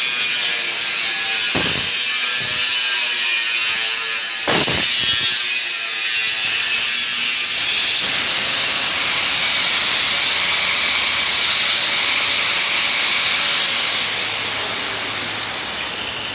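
Perforated metal cable tray being cut: a steady grinding, sawing hiss with a few sharp knocks in the first five seconds, easing off near the end.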